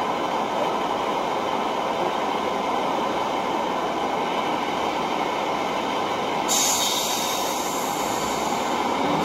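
Model Class 150 diesel multiple unit on a model railway layout, making a steady rumbling train noise. About six and a half seconds in, a sharp high hiss joins it and carries on.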